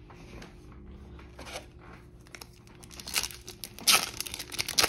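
Foil Yu-Gi-Oh! booster pack wrapper being torn open by hand, with crinkling of the foil. It starts about three seconds in and is loudest near the end.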